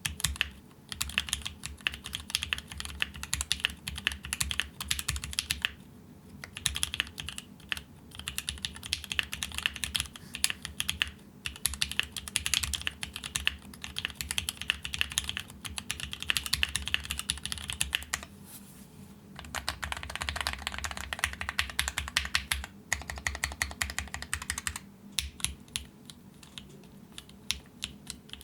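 Typing on a gasket-mounted custom mechanical keyboard with stock Mekanisk Ultramarine switches on an aluminum plate: fast runs of key clicks with a few short pauses, thinning to scattered keystrokes near the end.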